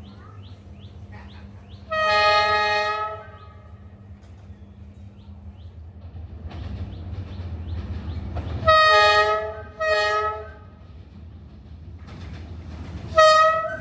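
D19E diesel-electric locomotive's multi-note air horn sounding: one blast of about a second two seconds in, two short blasts in quick succession about nine seconds in, and another starting near the end, over the rising rumble of the approaching train. Birds chirp faintly at the start.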